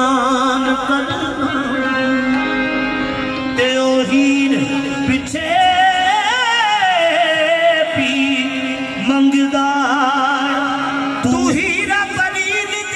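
Live qawwali: male voices singing long, ornamented phrases that waver in pitch, over harmoniums holding a steady note.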